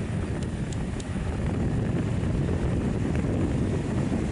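Beechcraft King Air 350i's twin Pratt & Whitney PT6A turboprop engines running, heard from a distance as a steady low rumble.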